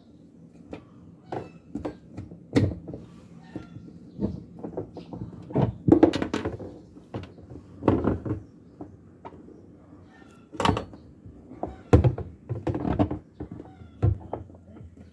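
Irregular knocks and clunks from washing machine parts being handled and worked on, some louder than others, over a steady low hum.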